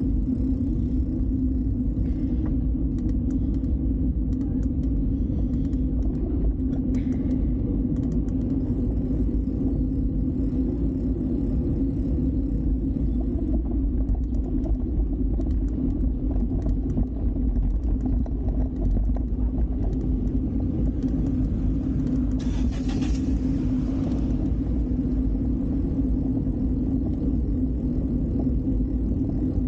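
Steady low rumble of city street traffic heard from a moving bicycle, with a brief hiss about three quarters of the way through.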